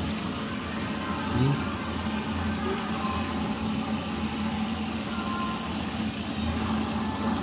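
A steady low mechanical hum, like an idling engine, over a hiss that fits running tap water; the hum cuts off suddenly at the end.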